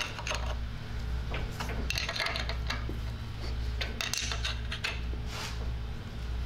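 Steel wrench clinking and ticking against brass nuts on a cast-iron exhaust manifold as the nuts are run down onto the studs: irregular short metallic clicks, some in quick clusters, over a steady low hum.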